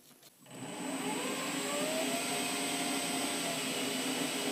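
Weisan WM210F400 benchtop metal lathe starting up about half a second in: the motor and spindle whine rises in pitch as the chuck spins up, then runs steadily with a thin high electronic whine over it.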